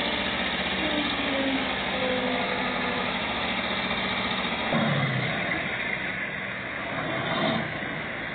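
Diesel engines of a Caterpillar wheel loader and a stuck dump truck running hard as the loader pushes the truck from behind, with a rev about five seconds in and another surge near the end.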